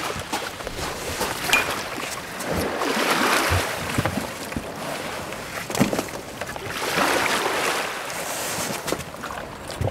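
Water rushing and splashing along the hull of a small boat under way, swelling and easing every second or two, with wind on the microphone.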